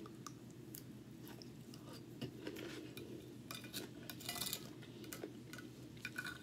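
Close-up chewing of a mouthful of asparagus and white rice, with a plastic fork tapping and scraping on a plate in scattered short clicks, busiest a little past the middle.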